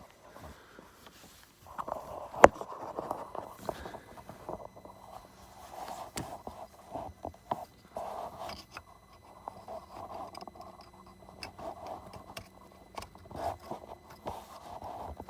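Hand work on the engine: scraping and rubbing of metal parts and tools, with scattered clicks and one sharp knock about two and a half seconds in, as the diesel fuel pressure regulator is refitted.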